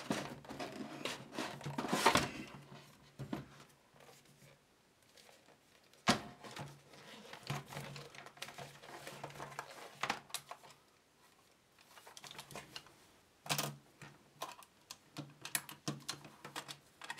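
Hand-handling noises: rustling and scraping inside a wooden radio cabinet, then sharp clicks and knocks from a Grundig Stenorette dictaphone as its cassette lid is opened. The loudest click comes about two seconds in.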